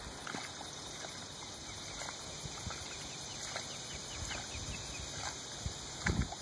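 Outdoor ambience: a steady faint hiss with scattered soft ticks and chirps, and a low bump about six seconds in.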